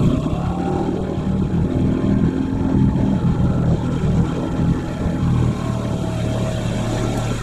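Small outboard motor running at a steady speed, pushing an inflatable boat along a narrow channel.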